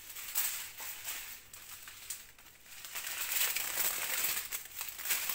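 Thin plastic drill packets for a diamond painting crinkling as they are handled, a crackly rustle that eases off about two seconds in and then picks up again.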